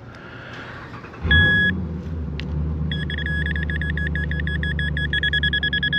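Electronic target beeps from a metal detector searching a dug hole for a coin: one short beep about a second in, then a rapid run of pulsing beeps from about three seconds in. Under them, a low steady vehicle engine rumble comes in about a second in.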